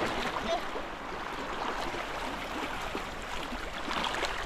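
Steady rush of water sloshing and lapping, with no clear individual splashes.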